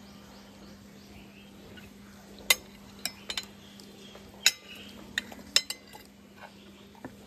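Metal spoon clinking against a ceramic plate as it cuts through soft steamed rice cake: about seven sharp, irregular clinks in the middle, two of them much louder.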